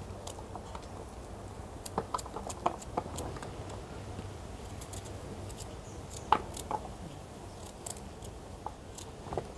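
Knife cutting peeled elephant foot yam into small pieces by hand, giving scattered, irregular light clicks and taps as the blade goes through and pieces drop onto a steel plate, the loudest about six seconds in.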